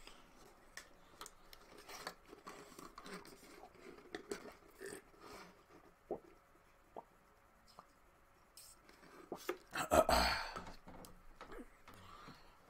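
Rustling and scattered small clicks of a person moving about and handling things close to the microphone, with one louder rustling burst about ten seconds in.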